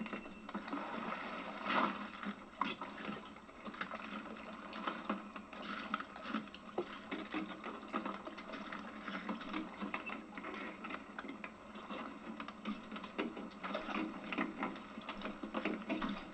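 Oysters and shells clattering and scraping as they are picked over by hand on a board in an oyster boat: many irregular clicks and knocks over a steady hiss.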